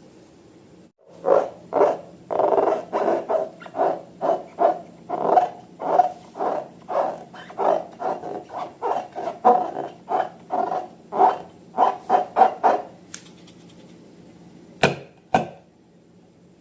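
Slime being squeezed by hand: a quick run of about two dozen short squishing sounds, roughly two a second, then two sharp clicks near the end.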